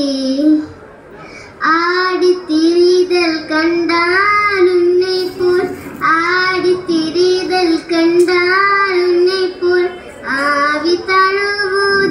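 A girl singing Tamil verse (padyamchollal) unaccompanied into a microphone. She sings long, held phrases, with a pause of about a second near the start and short breaks for breath later.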